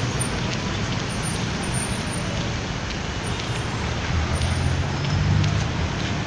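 Steady street traffic noise, with a vehicle's engine rumbling louder for a couple of seconds near the end.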